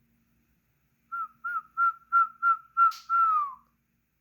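Whistling: six short notes on one pitch, then a longer note that slides down at the end, with a brief click near the last notes.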